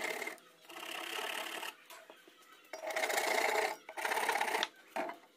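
Fine-toothed hand pull saw cutting pine in quick back-and-forth strokes. The sawing comes in several bursts of about a second each, with short pauses between.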